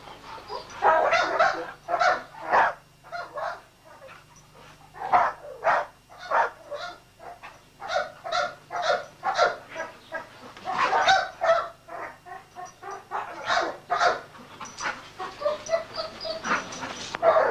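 A bull-breed dog barking repeatedly in short, uneven bursts.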